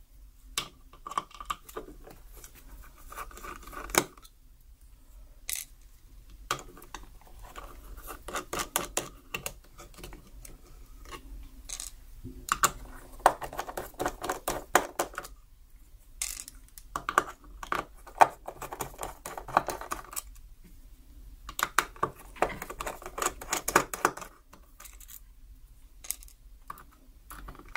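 Small clicks, taps and scrapes of hand work on a small radio: a Phillips screwdriver backing out tiny screws from the plastic case, and loose screws and parts set down in a plastic parts tray. The clicks come irregularly, with a few sharper, louder ones and denser clusters of small clatter.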